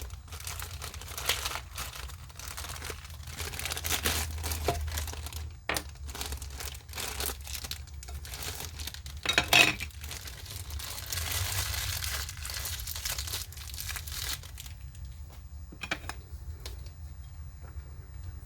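Packaging crinkling and rustling as a boxed action figure is unpacked by hand, with scattered clicks and knocks of handling; the loudest rustle comes about nine seconds in, and the handling dies down near the end.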